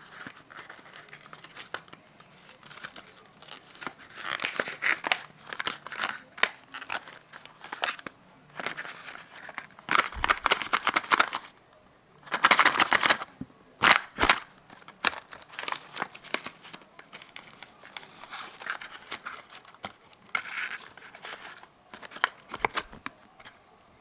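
Packaging of a micro USB cable being opened and handled: irregular crinkling, tearing and clicking of a small box and its plastic wrapping, with the loudest bursts near the middle.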